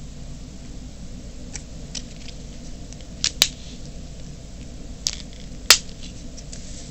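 A few sharp clicks and snips from handling and cutting tape while taping paper fan blades. There are two close pairs about two seconds apart, the last click the loudest, over a steady low hum.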